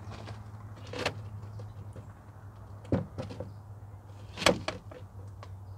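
Plastic knocks and clicks of a drop-in panel air filter being handled and seated in a truck's plastic airbox: a few separate knocks, the loudest about four and a half seconds in.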